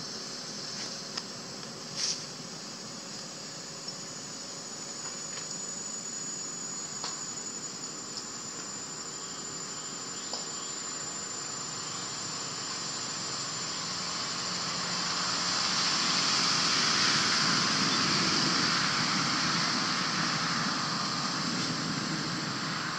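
Chorus of insects in the forest: a steady high-pitched buzz with a thin, high steady tone above it, growing louder about fifteen seconds in and easing slightly near the end.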